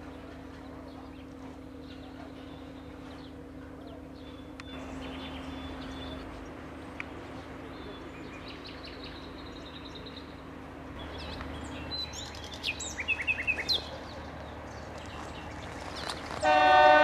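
Birds chirping over a steady low hum, with a quick run of louder calls a few seconds from the end. Then a locomotive horn sounds a loud blast just at the end.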